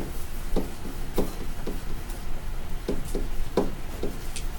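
A pen stylus tapping against a screen while numbers are hand-written: about ten light, irregular knocks in two clusters, with a short pause in between.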